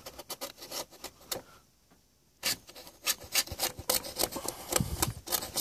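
X-Acto knife blade scraping gummy, disintegrated rubber belt residue (belt goo) off a turntable's painted metal deck, in a run of short, irregular scrapes with a brief pause about two seconds in.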